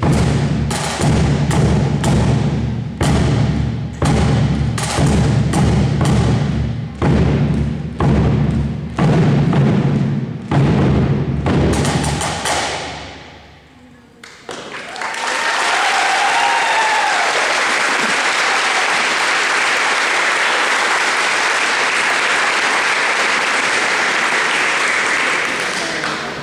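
Marching drum corps of bass and snare drums playing a cadence of repeated strikes, which ends about halfway through. After a short lull the audience claps steadily, with some cheering, and the clapping tails off near the end.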